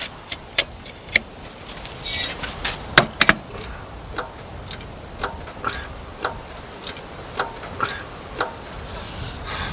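Hydraulic bottle jack being pumped under a four-wheel-drive, its pump stroke clicking about twice a second as the ram lifts the vehicle. Before that come a few scattered metal clicks and clanks.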